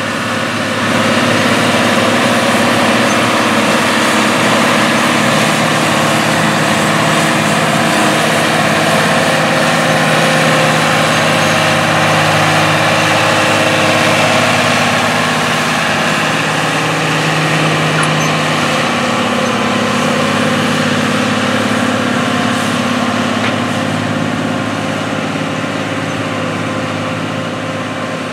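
AGCO White 8810 tractor's diesel engine running steadily under load while pulling a tillage implement through a field. It gets louder about a second in and grows fainter through the second half.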